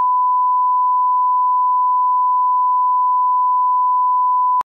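Steady 1 kHz reference tone, one pure unbroken beep that cuts off suddenly at the very end: the line-up tone laid on a broadcast videotape leader.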